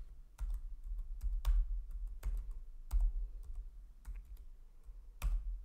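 Computer keyboard keys pressed one at a time in an irregular run of separate clicks as a password is typed, with a few harder keystrokes, the hardest near the end.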